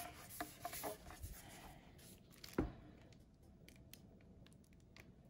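Faint rubbing and scraping as a wooden resin tray is handled and tilted with gloved hands, with one sharp knock about two and a half seconds in and a few light ticks after it.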